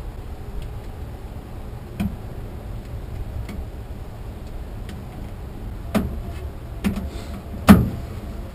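Irregular clicks and knocks of tools and parts being handled while a car is stripped for parts, about half a dozen sharp strikes, the loudest about three quarters of the way in, over a steady low rumble.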